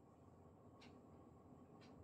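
Near silence, with two faint ticks about a second apart.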